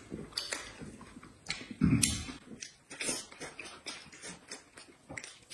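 Close-up eating sounds: chewing and mouth smacking, heard as a quick, irregular run of small wet clicks, with a short low sound about two seconds in.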